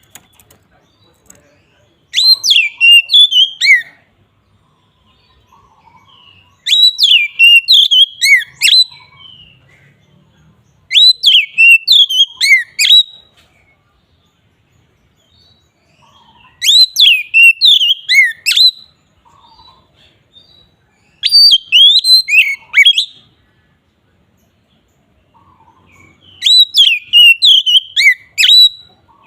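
Oriental magpie-robin (kacer) singing its full, open song: six bursts of quick whistled notes that glide up and down, each burst about two seconds long, coming roughly every four to five seconds.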